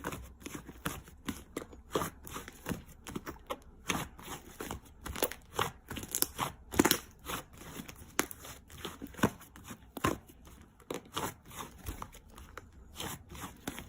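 Slime being squeezed and pressed by hand, giving irregular crackling and clicking pops several times a second.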